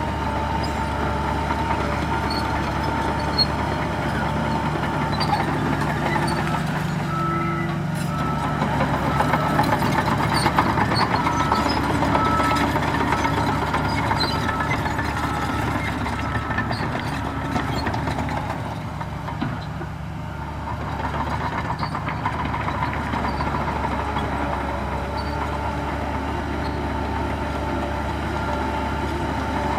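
Heavy diesel engines of a bulldozer and dump trucks running steadily, swelling louder for a few seconds about a third of the way in and easing off for a moment past the middle. A reversing alarm beeps at an even pace for several seconds in the middle.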